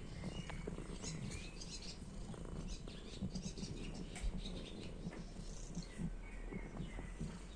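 Kitten purring, a continuous low fluttering rumble.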